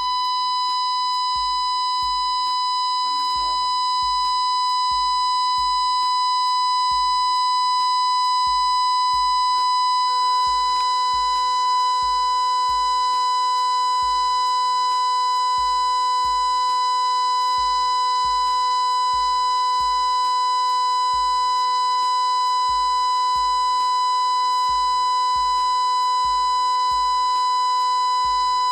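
A steady, high-pitched sine test tone played through a small speaker driven by a PAM8403 class-D amplifier, with a row of overtones above it that show distortion in the output. About ten seconds in, further tones join below and between them as the distortion grows, and the tone holds steady from then on.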